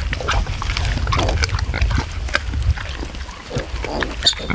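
Piglets grunting in short, quick calls, with a higher squeal about four seconds in.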